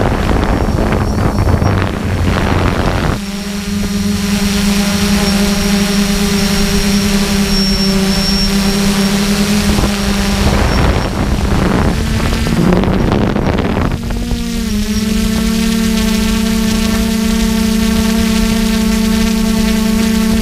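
Quadcopter's motors and propellers whining steadily, as picked up by a camera mounted on the drone, with gusts of wind noise over it at the start and again later on. Past the middle the pitch wavers, then settles into an even hover.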